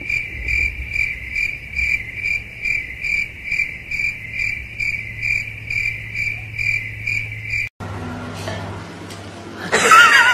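Crickets chirping in an even pulse, about two to three chirps a second, over a low steady hum; the chirping cuts off abruptly about two-thirds of the way through. Near the end a short, loud, wavering high-pitched vocal sound follows.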